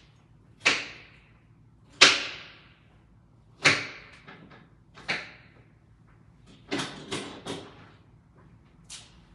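Kitchen knocks and clatters: about eight sharp bangs at uneven intervals, each dying away quickly, with a cluster of three near the end.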